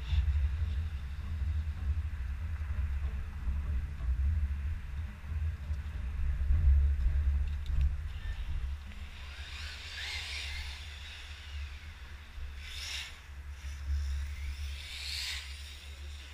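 Radio-controlled car driving on the track, passing the camera three times in the second half with a short whine and tyre hiss each time, over a steady low rumble.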